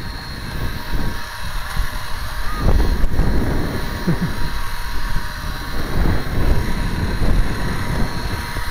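Wind buffeting the microphone of a camera carried on the move, an irregular low rumble with a steady hiss above it.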